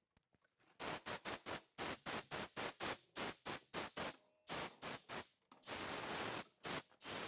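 Compressed-air blow gun on a coiled air hose blowing dust off tools on a wall. It gives a run of short hissing blasts, about three or four a second, then longer steady blasts near the end.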